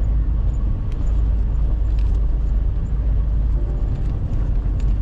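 Steady low rumble of a road vehicle, its engine and road noise running with no change in pace.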